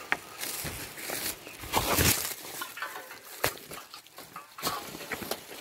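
Footsteps and fern fronds and undergrowth brushing against a walker pushing through on a steep trail: irregular swishes and rustles, with a louder rustle about two seconds in and a sharp snap a little later.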